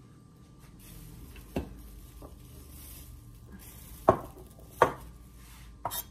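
A few sharp knocks in kitchen handling: a heavy cut-glass bowl set down on a granite countertop gives the two loudest, a bit under a second apart. Near the end a kitchen knife cuts a tomato down onto a wooden cutting board.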